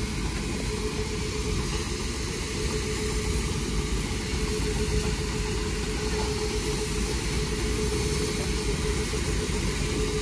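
A railway locomotive standing or moving slowly, giving a steady low rumble and hiss with a constant mid-pitched hum.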